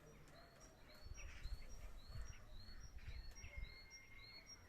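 A small songbird chirping over and over, short upward-curving chirps alternating between two pitches about two a second, over faint low rumbling.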